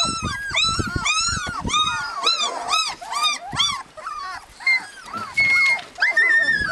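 Husky puppies whining and crying: a steady string of short high squeals that rise and fall, about three a second, thinning out into a few longer, higher whines in the second half.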